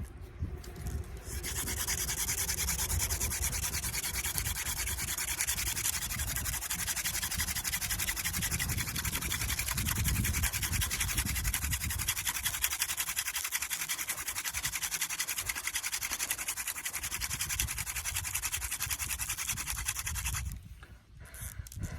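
Mullein-stalk spindle spun fast between the palms on an artist conk fungus hearth, giving a continuous rapid dry scraping and rubbing of hand-drill friction. It starts about a second and a half in and breaks off briefly near the end, as happens when the hands run back up the spindle, then starts again.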